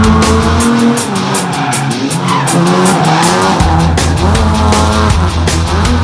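Car drifting, its engine revving up and down while the tyres squeal and skid, over loud music with a heavy pulsing beat that drops out for a few seconds in the middle.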